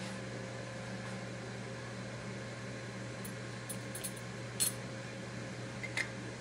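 Steady low hum of a countertop heating unit running with butter melting inside, with a few faint light clicks and clinks from about three seconds in and once more near the end.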